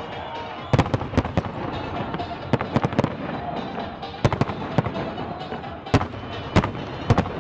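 Fireworks going off in sharp, irregular cracks and bangs, often two or three in quick succession, with music playing underneath.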